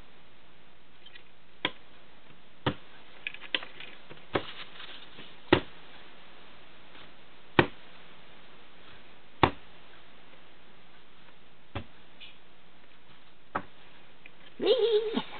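Sharp, irregular taps and knocks, about ten of them a second or two apart, as a lorikeet's feet and beak strike a wooden ladder toy and desk top. A brief, louder flurry of sound comes near the end as the bird flaps and moves about.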